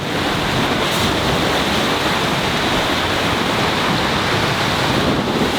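Loud, steady rushing noise of wind and sea water, even throughout with no breaks.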